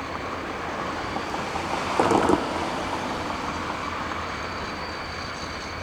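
Steady rumble of a diesel freight train and its surroundings at a level crossing, with faint steady high tones and one short, louder burst about two seconds in.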